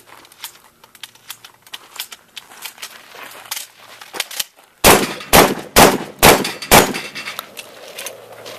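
Shotgun fired five times in quick succession, about two shots a second, after a few seconds of faint clicks and handling noise.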